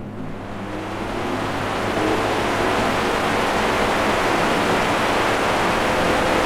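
A power tool running under load: a steady, dense hiss with a faint motor hum underneath, building over the first two seconds and then holding level.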